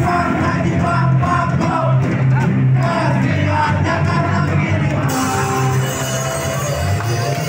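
A loud live rock band with sung vocals over a heavy low end, and a crowd yelling along.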